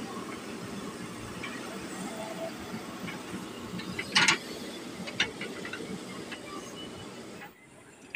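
JCB 3DX backhoe loader's diesel engine running steadily while the backhoe digs soil, with scattered clicks and a short, loud noise about four seconds in. The engine sound drops away abruptly near the end.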